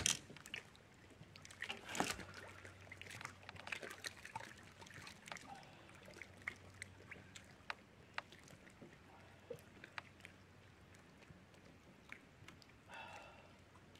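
Scattered light clicks and knocks as a freshly caught bass is handled on a boat deck, with two louder knocks near the start and about two seconds in, over a faint steady low hum.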